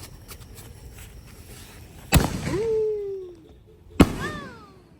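Two sharp firework bangs about two seconds apart, each followed by a falling tone.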